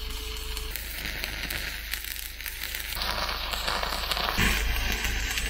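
Electric arc welding: the arc's steady crackling hiss. Its tone changes abruptly about a second in, at three seconds and again near four and a half seconds, as one weld gives way to the next.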